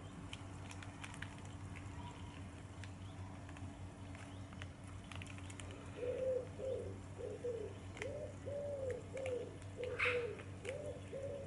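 A pigeon cooing, a run of about ten low coos in steady rhythm starting about six seconds in, over a faint low steady hum.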